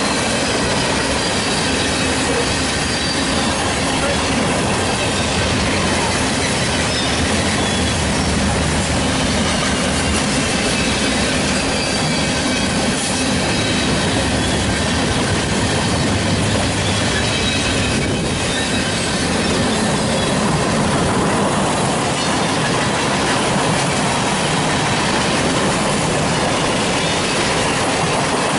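Freight train cars rolling past on the rails: a steady, loud rolling noise of steel wheels on track, with thin high-pitched wheel squeal coming and going.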